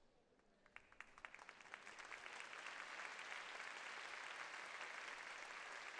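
Arena crowd applauding: a few scattered claps about a second in, swelling into steady clapping with no voices over it.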